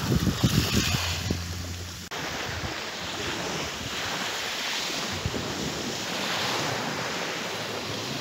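Wind buffeting the microphone in gusty low rumbles. After about two seconds it gives way to a steady, even rushing noise.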